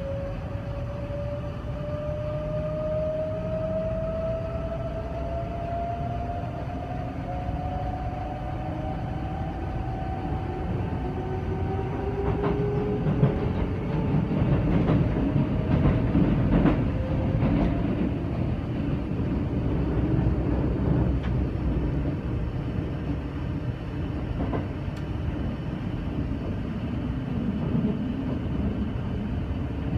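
Kintetsu 23000-series Ise-Shima Liner heard from inside the carriage as it pulls away. The traction motors' whine rises steadily in pitch as the train accelerates, over a steady rumble of wheels on rail. From about 12 to 18 seconds in, the rumble grows louder and there are several sharp clicks from the track.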